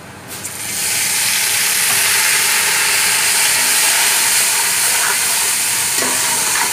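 Water poured into hot ghee with browned onions and spices, hissing and sizzling loudly in a burst of steam. The hiss swells within the first second and then holds steady.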